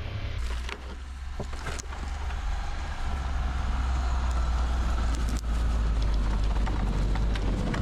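A kei truck (Japanese mini truck) driving, its engine and running gear making a steady low rumble with a few knocks.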